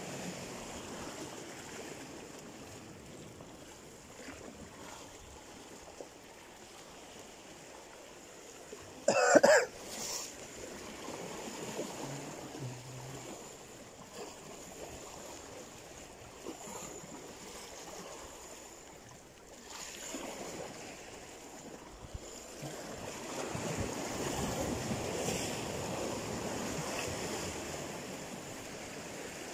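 Sea waves washing against a rocky shore, with wind on the microphone; the wash swells louder over the last third. A little after nine seconds in there is one brief loud scrape.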